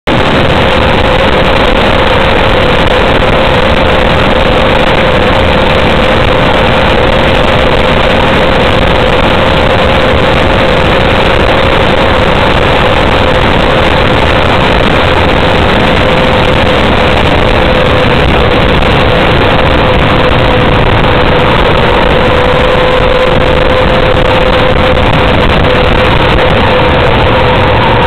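Motorcycle running at steady highway speed, its engine heard under loud, continuous wind rushing over the microphone, with a steady hum running through it.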